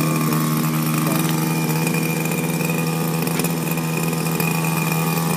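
Gas engine of a 26cc RC speedboat idling steadily out of the water, the boat propped on a block on shore.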